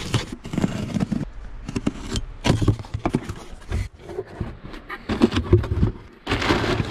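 A blade slitting packing tape on a cardboard box, then the box flaps pulled open and crumpled brown packing paper rustling and crinkling as hands dig through it, loudest near the end.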